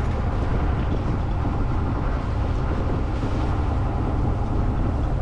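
Sailboat under way with its engine running: a steady low drone and rumble, with the rush of water along the hull over it.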